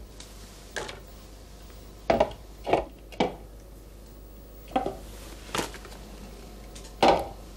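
White bowls being handled and set down on a table while balloons are tipped out of them: a series of short knocks and clinks, the loudest about two seconds in and near the end.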